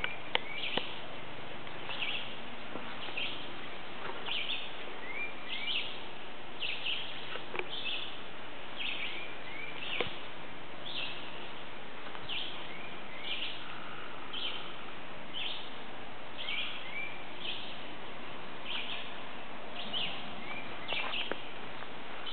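A bird calling over and over, a short high chirp about once a second, over a steady outdoor hiss.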